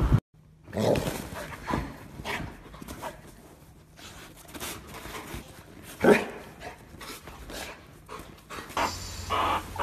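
A dog panting and snuffling in short, irregular bursts while it plays, with a louder huff about six seconds in. Near the end a low steady hum and a run of short repeated calls come in.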